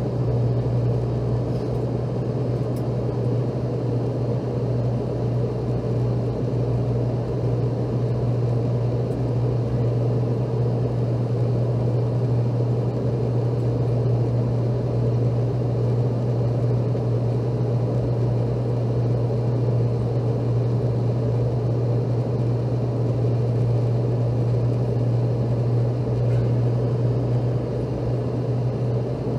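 Steady low drone of cabin noise inside a Boeing 717 airliner in flight, whose engines are rear-mounted Rolls-Royce BR715 turbofans.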